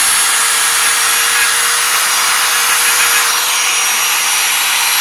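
Electric drill running at steady speed with a wheel pressed against rusty steel to clean it, a steady motor whine under a loud scraping rub.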